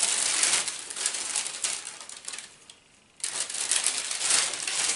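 Plastic mailing bag crinkling and rustling as folded fabric is pulled out of it, in two bouts with a short pause about three seconds in.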